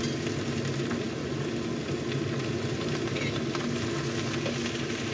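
Yau mak choi greens sizzling in a hot wok over a steady low hum, with a metal spatula beginning to toss the leaves near the end.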